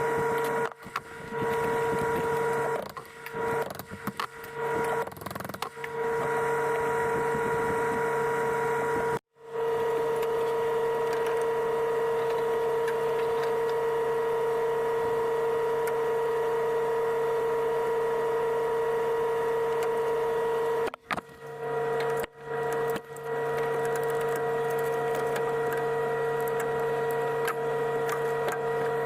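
A small electric motor, most likely a power tool, running at a steady pitch. It stops and restarts several times in the first few seconds, cuts out for an instant about nine seconds in, and stops briefly again twice after about twenty-one seconds.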